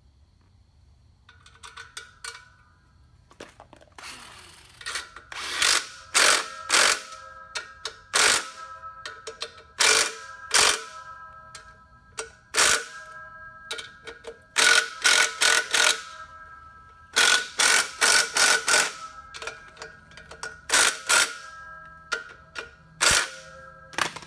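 Metal parts being struck or knocked together, many sharp clanks in irregular quick clusters, each leaving a ringing tone.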